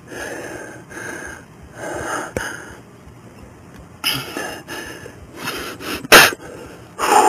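Breath-like puffs and rustling close to a body-worn camera's microphone, coming every second or two, with one sharp, loud noise about six seconds in.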